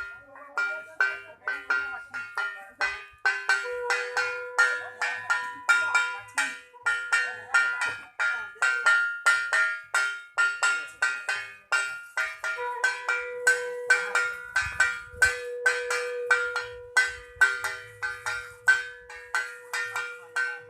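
A hand bell rung rapidly and steadily, about three to four strokes a second, each stroke ringing on. Twice, a conch shell is blown in a long held note over the bell.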